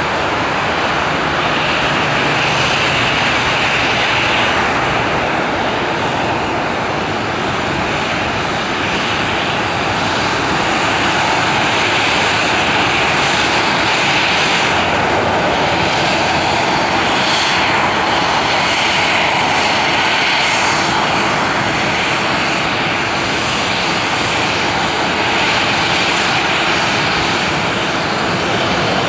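Airbus A320 jet engines running at taxi power: a steady rush with a high whine over it that wavers a little.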